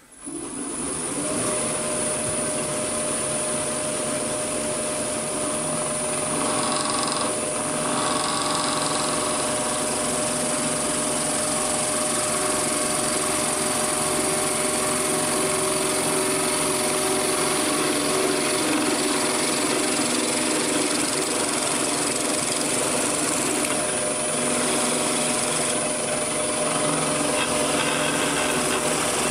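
Wood lathe running while a homemade lathe knife, made from a roughing gouge, cuts a very dry, hard piece of timber. It is a steady machine noise with a thin high tone that starts abruptly.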